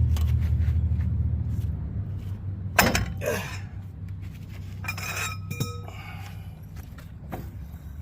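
Metal tools and truck parts being handled, giving a few sharp clinks and clanks, one of which rings briefly. A low hum fades away over the first few seconds.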